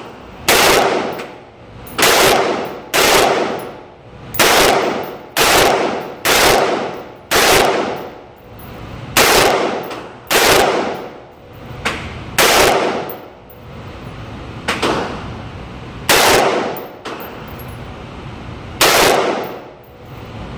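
AR-15 rifle in 5.56 firing single shots in a slow, uneven string, about thirteen loud reports one to three seconds apart, each trailing off in a short echo.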